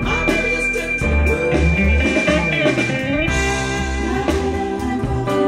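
Instrumental blues-rock passage played back through Klipsch RP-600M II bookshelf speakers and picked up by microphones: a guitar line with gliding, bending notes over held chords and a heavy bass.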